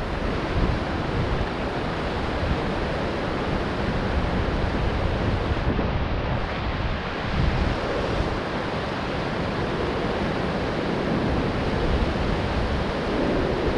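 Steady rush of river current and rapids, with wind buffeting the microphone as a low rumble.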